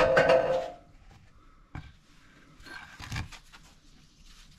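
Clatter of tools and metal parts being handled, with a short ringing at first, then a sharp knock and a scrape.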